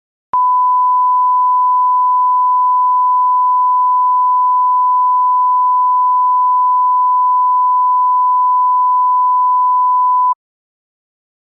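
Censor bleep sound effect: one pure, steady tone held for about ten seconds, switching on and cutting off abruptly.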